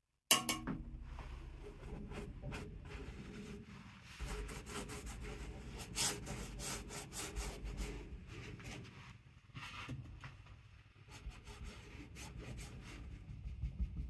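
Paint being worked across a textured stretched canvas: quiet, irregular scraping and rubbing strokes. They start abruptly just after a brief silence at the beginning.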